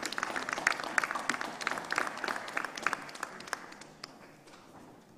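Audience applauding, many separate hand claps that thin out and die away about four seconds in.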